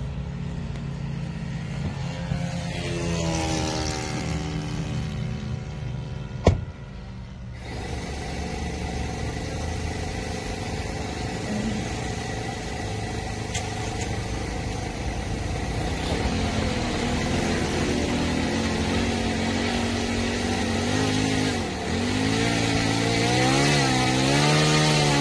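Engine of a radio-controlled model aircraft running, its pitch rising and falling several times. There is a sharp click about six and a half seconds in.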